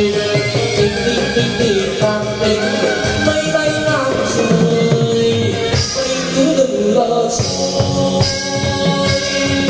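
Chầu văn ritual music for a hầu đồng ceremony: a singer holding long melodic lines over instrumental accompaniment with a steady beat.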